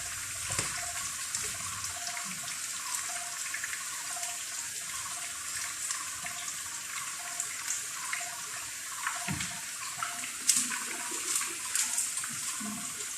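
Cooking liquid sizzling in a frying pan: a steady hiss with light crackles, and a sharp clack about ten seconds in.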